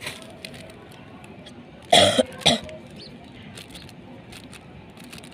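A person coughing twice about two seconds in, the second cough half a second after the first.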